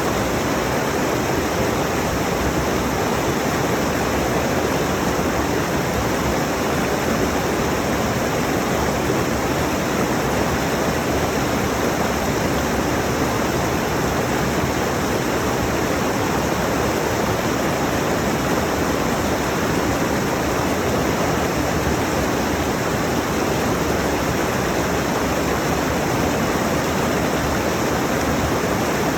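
A mountain stream rushing over rocks, a steady, unbroken roar of water.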